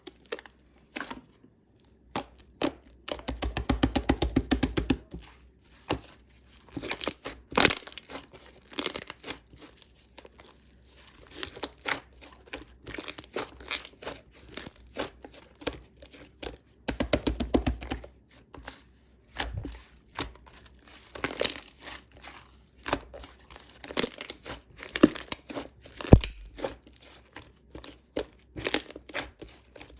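White slime being squeezed, stretched and pressed by hand, making irregular sticky pops and crackling clicks, with thicker runs of rapid popping a few seconds in and again past the middle.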